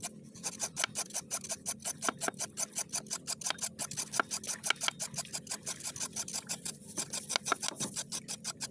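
A knife blade scraping rapidly over a sea creature's skin against a wooden board, in about six even strokes a second. The scraping strips off the yellow, rust-like outer coating so that the flesh comes clean and white.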